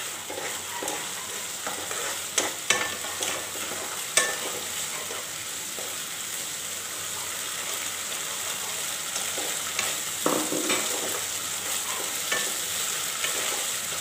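Masala paste with beaten yogurt frying in a non-stick wok, sizzling steadily while a spatula stirs and scrapes through it, with a few sharp clicks of the spatula against the pan. This is the masala being fried down (kosha) before the coconut milk goes in.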